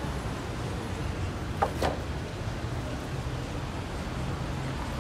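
Steady low rumble of city street traffic, with two brief sharp clicks or squeaks close together a little under two seconds in.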